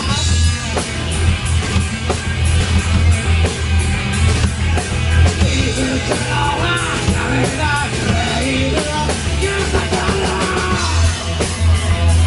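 Rock band playing live in a small rehearsal room: distorted electric guitars and a drum kit driving a fast garage-rock song, with a singer shouting into the microphone.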